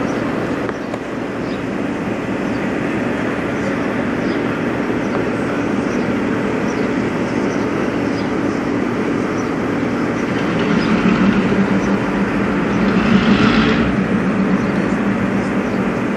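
Diesel locomotive engine running with a steady low drone, growing louder for a few seconds about eleven seconds in.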